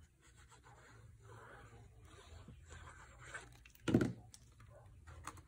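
Faint rustling of a sheet of patterned paper handled while liquid glue is run onto it, with one short knock about four seconds in.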